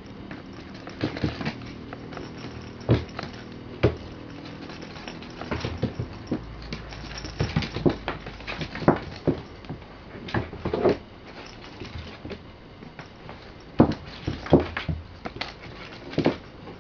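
A rustling cat-teaser toy being flicked and batted about on a wooden floor by two-month-old kittens pouncing and scrambling after it. The sound is a run of irregular rustles, taps and thumps, a few of them sharp and loud.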